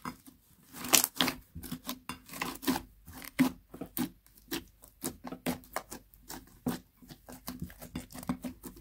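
Pink glitter slime being squished, pressed and spread by hand in a glass dish: a quick, irregular run of sticky pops and crackles, several a second.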